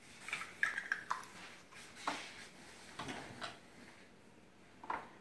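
Small plastic play-food pieces of a SpongeBob Krabby Patty toy set being handled: scattered light clicks and knocks, with a few brief high squeaks in the first second.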